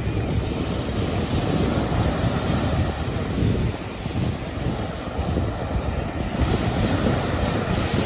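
Surf breaking and washing up the sand, with wind rumbling on the microphone.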